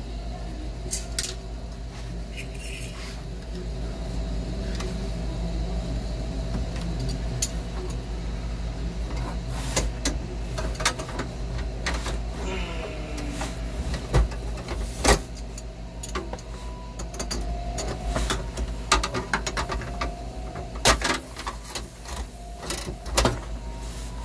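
Brazing torch running steadily while heating the brazed joints of a failed thermostatic expansion valve to remove it. Scattered sharp clicks and clinks of pliers and metal on the copper fittings come and go, thickening in the second half.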